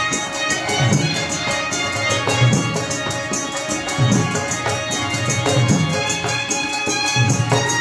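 Live Pashto folk music: a dhol drum beaten in a steady rhythm of deep strokes under a held melody line, with fast, even high ticking percussion on top.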